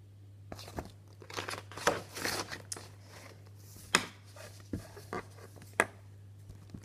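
Rustling and crinkling as a cross-stitch kit's packaging and stitched fabric are handled and pulled out, with three sharp clicks or taps in the second half.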